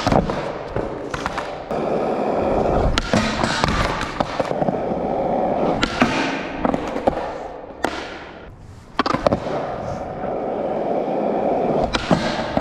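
Skateboard wheels rolling on concrete, broken by several sharp board clacks and impacts, as a skater pops onto a bench for a front nosegrind and spins a 180 out. The rolling drops away briefly about three-quarters of the way through before the board comes down again.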